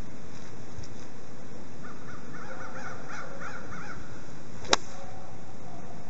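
A golf club strikes the ball once, a single sharp click near the end, as the swing comes through. Before it, a bird calls in a quick run of repeated calls for a couple of seconds.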